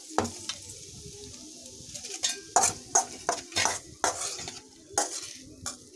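Metal pots and utensils clinking and knocking, about a dozen sharp knocks, as a hot aluminium kadai and pans are handled for serving. A faint sizzle of the just-fried masala runs in the first couple of seconds.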